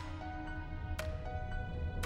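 Background score music: sustained tones under a low hum, with a bright struck accent about once a second.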